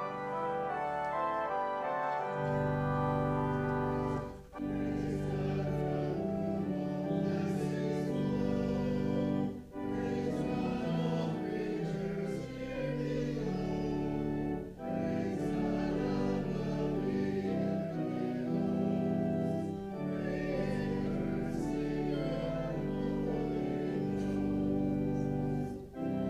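Church music: organ chords under singing, in phrases about five seconds long with short breaks between them.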